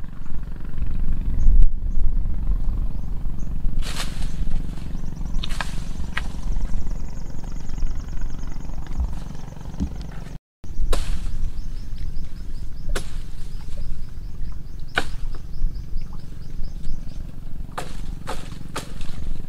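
Low, steady rumble of wind on the microphone, with about ten sharp knocks on a wooden dugout canoe's hull scattered through, several close together near the end.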